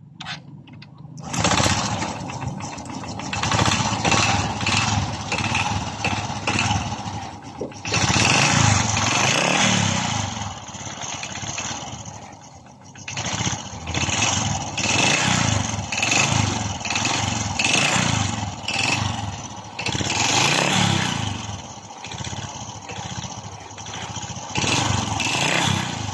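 Honda RS 125 Fi motorcycle engine, freshly rebored and reassembled, running and being revved up and down repeatedly. It starts abruptly about a second in.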